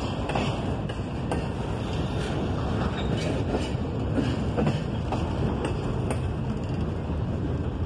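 Double-stack intermodal well cars of a freight train rolling past: a steady rumble of steel wheels on rail, with faint scattered clicks.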